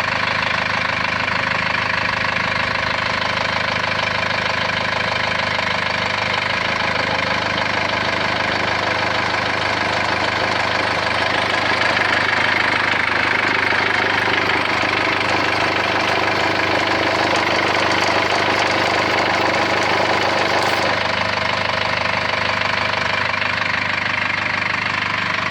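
Vehicle engine idling steadily with a persistent noise that goes away when water is put on it, which the owner suspects comes from the belt or the alternator. Its sound shifts about seven seconds in.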